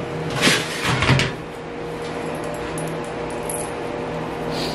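Two short clatters of kitchen handling about half a second and a second in, then a steady low appliance hum.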